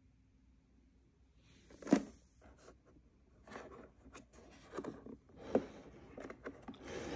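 Hollow plastic toy car being handled: a sharp plastic knock about two seconds in, then scattered knocks and scraping as it is gripped and moved, with a steadier scraping near the end.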